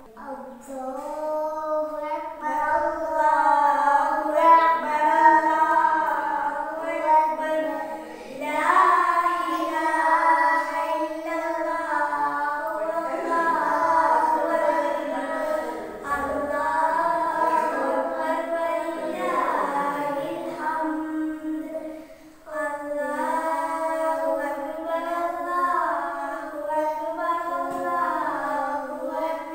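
A child singing a melody in long phrases with held notes, breaking off briefly about 22 seconds in.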